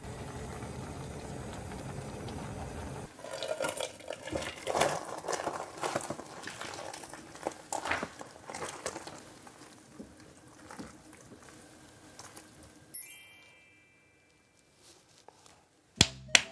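Spicy ramen bubbling steadily in its pot for about three seconds, then the noodles and broth poured from the pot into a large bowl with splashing and sloshing liquid sounds that taper off. A short tone sounds near the end, then a couple of clicks.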